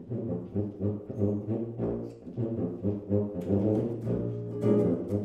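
Tuba playing a blues bass line of short, even notes, about three a second, with electric guitar chords over it, at the start of a small jazz group's tune.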